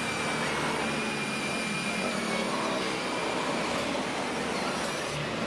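Cordless drill spinning a Shindaiwa 345 chainsaw engine over by its flywheel nut, in place of the pull starter, a steady whir.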